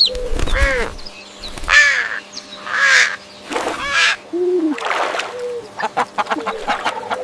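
A crow cawing: a run of harsh caws about once a second, with lower, shorter arching notes between them.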